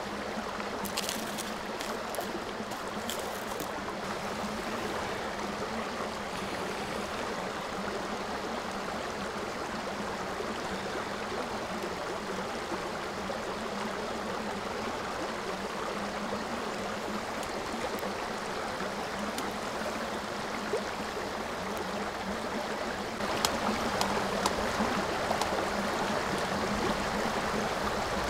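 Dry twigs and kindling crackling on a small campfire as it is laid and lit, over a steady rushing background. About 23 s in it gets louder with more crackles as the kindling catches and begins to smoke.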